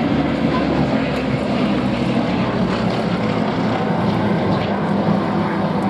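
Bristol Blenheim's twin Bristol Mercury nine-cylinder radial engines droning steadily as the bomber flies a low pass.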